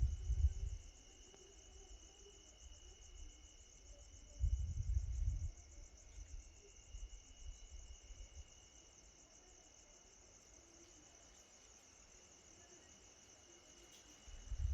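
Insects chirring steadily and high-pitched, with a short low rumble right at the start, another about four and a half seconds in, and a third building near the end.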